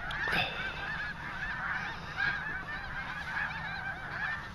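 A large flock of snow geese calling, many overlapping honks at once in a dense, unbroken chorus.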